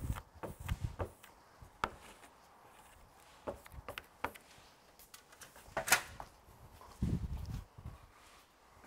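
Hand pressing and rubbing a vinyl badge sticker onto a fire engine's metal cab door: a few low thumps at first, then scattered light clicks and knocks. A short, loud crackle comes about six seconds in, and a brief run of low thumps follows about a second later.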